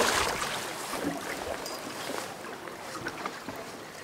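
A hooked chinook salmon splashing at the surface beside the boat as it is brought to the landing net, loudest at the start and dying down within about a second to quieter water sounds.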